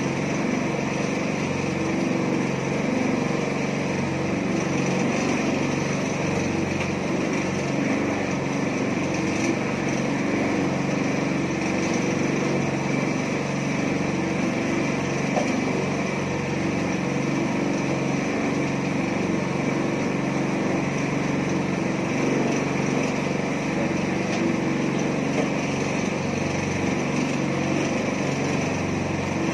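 Small petrol engine of a portable mini concrete mixer running steadily at an even speed.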